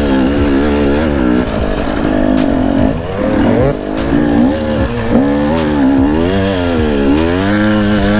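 Enduro dirt bike engine revving up and down as it rides a trail, its pitch rising and falling every second or so, with a few short knocks in the middle.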